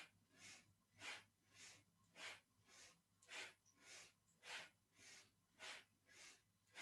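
Faint, fast rhythmic breathing through the nose or mouth, a breath in and a breath out about twice a second, the breaths alternating stronger and softer, kept in time with a side-to-side twisting movement.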